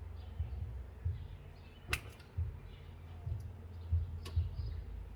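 Pruning secateurs snipping through small tree branches: two sharp cuts about two seconds apart, with lighter ticks between, over a low rumble.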